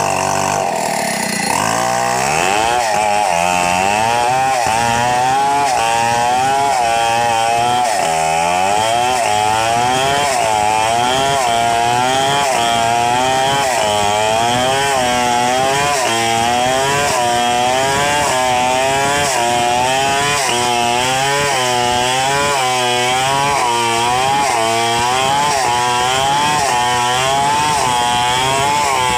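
Stihl 070 two-stroke chainsaw at full throttle cutting through a log. Its engine pitch dips and recovers about once a second as the chain loads up in the cut.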